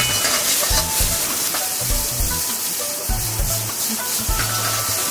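A steady hiss of heavy rain and rushing water runs under background music with a repeating bass line.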